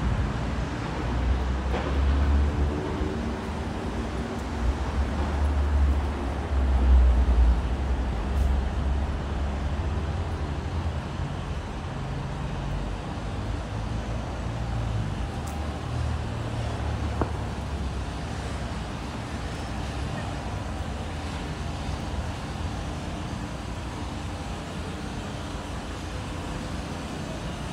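Street traffic: a motor vehicle's engine running close by as a loud low rumble for the first ten seconds or so, its pitch shifting, then fading into a steady background hum of city traffic.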